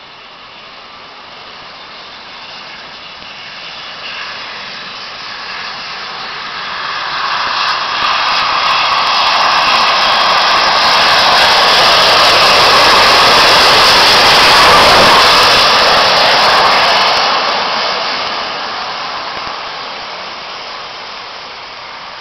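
Southern Railway N15 'King Arthur' class 4-6-0 steam locomotive 30777 Sir Lamiel passing through with its train: a rushing noise that builds up, is loudest a little past the middle, then fades away.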